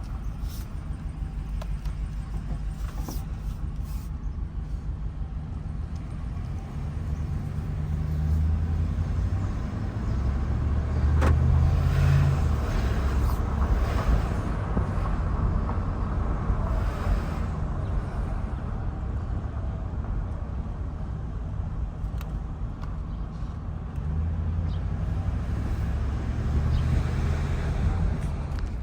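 Dodge Ram 1500's 5.7-litre Hemi V8 running under way, rising and easing in load several times. The engine has a persistent cylinder 6 misfire.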